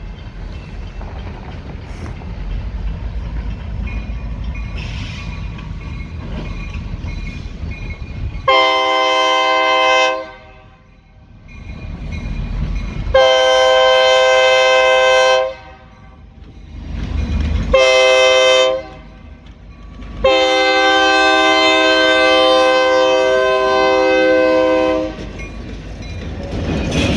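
Horn of Escanaba & Lake Superior Railroad EMD diesel locomotive 502, a loud chord of several tones, sounding the grade-crossing signal: two long blasts, a short one, then a final long one. A low diesel rumble grows under it as the locomotives approach.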